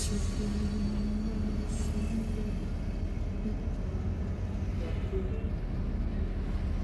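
Coach engine and road noise heard from inside the cabin of a moving bus, a steady low rumble.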